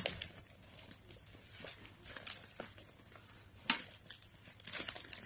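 Faint, scattered rustling and crackling of plastic litter and dry plant debris as someone steps and moves through rubbish, with one sharper crack about three and a half seconds in.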